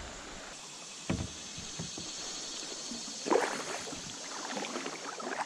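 Kayak paddling: paddle strokes splashing in the river, with a sharp knock about a second in and a louder splash about three seconds in, over a steady wash of moving water.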